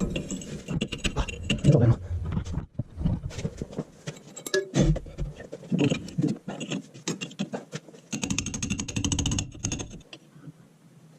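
Metal tool prying and scraping the old axle tube seal out of a Ford F350 front axle housing: irregular metal clicks and scrapes that stop about ten seconds in.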